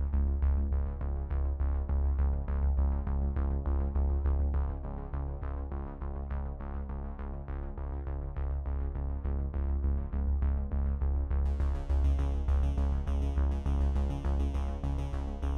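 Background electronic music with a steady beat and a strong deep bass; a brighter high layer comes in about three-quarters of the way through.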